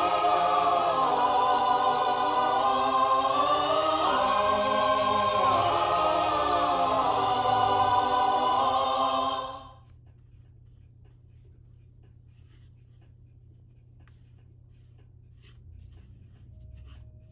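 Choral music with long held vocal chords that cuts off abruptly about ten seconds in. Only faint scattered light ticks and scratching follow.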